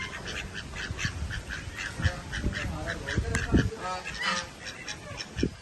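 A flock of Indian Runner ducks quacking, a continuous run of short, rapid calls from several birds, with a few low thumps about two and three and a half seconds in.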